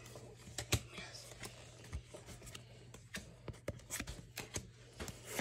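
Pokémon trading cards being flipped through by hand, one slid behind another: a string of soft, irregular flicks and card-on-card slides.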